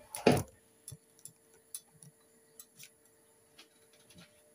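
A sharp knock about a quarter second in, then scattered faint, irregular ticks and clicks, most likely handling noise from the recording phone being moved and set in place, over a faint steady hum.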